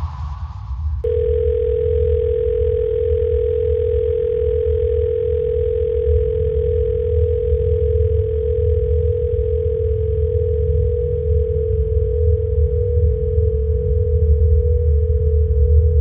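A steady single-pitch electronic tone, like a telephone dial tone, cuts in about a second in and holds unchanged over a continuous deep low rumble.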